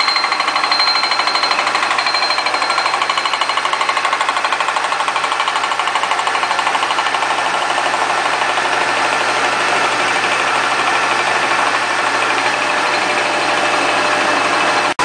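Milling machine running steadily, with a whine and a fast pulsing chatter that evens out about halfway through.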